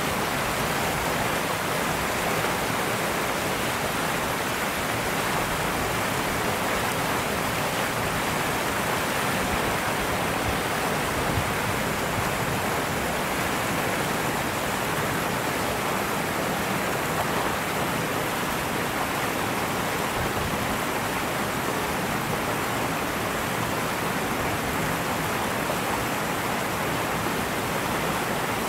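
Steady, even rushing hiss with no distinct events.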